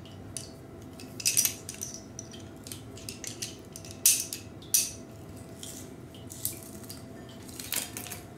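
Metal kitchen utensils clinking and clacking as a garlic press is handled, a few sharper clacks standing out, the loudest about four seconds in, over a faint steady hum.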